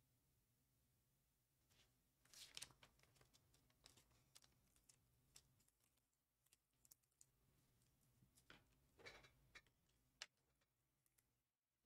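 Near silence with faint scattered clicks and rustles of trading cards being handled, the clearest about two and a half seconds in and again about nine seconds in.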